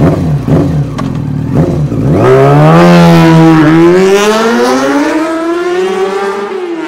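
A motorcycle engine revving. Its pitch wavers and dips over the first two seconds, then climbs steadily for about four seconds and falls away near the end.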